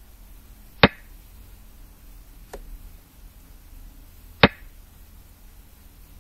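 Xiangqi board software's piece-move sound effect: two sharp clacks about three and a half seconds apart as pieces are set down, with a much fainter click between them.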